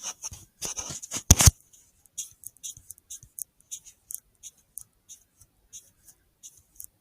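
Faint irregular clicking and rustling: a few louder sharp knocks in the first second and a half, then a run of light high-pitched ticks, roughly three a second.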